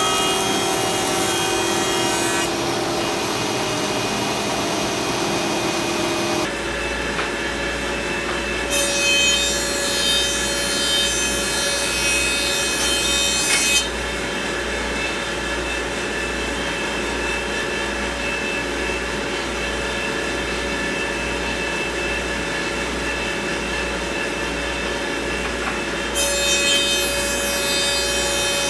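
A stationary woodworking power tool runs steadily, its tone shifting about six seconds in. Wood is fed through it twice, each pass adding a rough, high cutting noise: once about nine seconds in for about five seconds, and again near the end.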